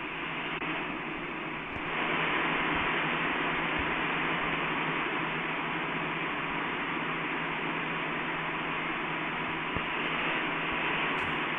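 Steady, even hiss of background noise, a little louder after about two seconds.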